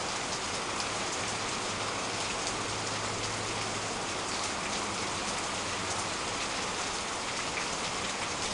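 Heavy tropical rain falling steadily: an even hiss of rain.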